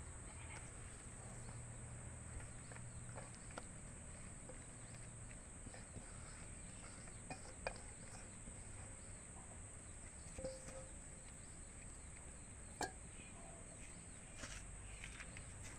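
Faint outdoor ambience: a steady high-pitched insect drone, with scattered small clicks and taps.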